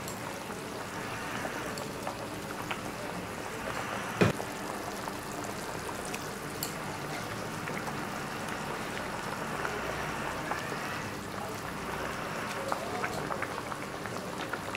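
Curry bubbling at a steady boil in the pan, with one sharp click about four seconds in.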